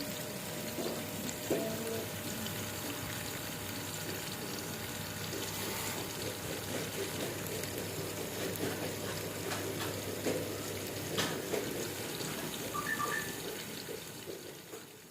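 Water rushing and splashing, stirred by a small homemade aquarium powerhead pump running in a tank or container. It fades out near the end.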